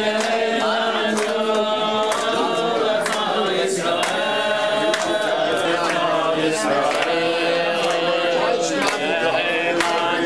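A group of voices singing together in a chant, several people holding long notes.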